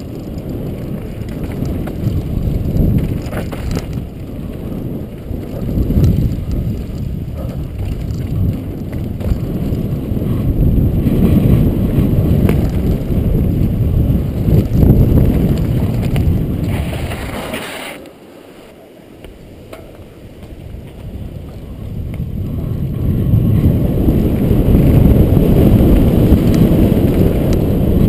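Wind rushing over a helmet camera's microphone and a downhill mountain bike's tyres rolling over dirt and loose gravel at speed. The rush drops away for a few seconds about eighteen seconds in, then builds back up as the bike picks up speed again.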